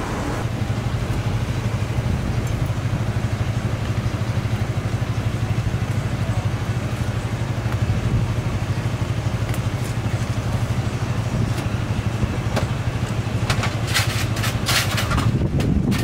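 An engine idling steadily with a fast, even throb. A cluster of sharp clicks and clatters comes near the end.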